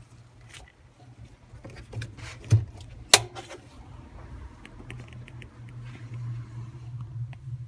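Haier JW-C55CK top-loading washing machine: a few sharp knocks and clicks, the loudest about three seconds in, then light ticks, over a low steady hum that grows stronger in the second half.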